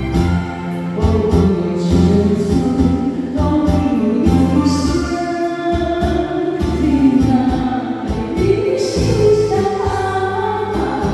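Song with a sung vocal line over electronic organ/keyboard accompaniment.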